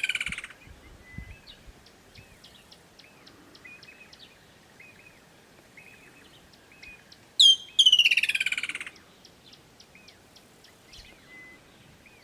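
Woodland kingfisher calling: a sharp high note, then a loud trill of fast notes sliding down in pitch, about seven seconds in; the end of a previous call fades out at the very start. Faint chirps and ticks of other birds fill the gaps.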